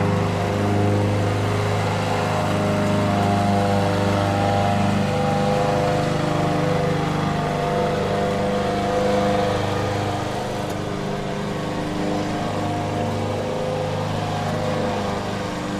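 Lawn mower engine running steadily, becoming slightly quieter about ten seconds in.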